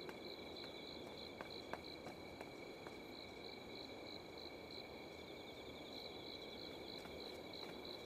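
Faint night-time crickets chirping in an even rhythm, a little over two chirps a second, over a steady high insect trill.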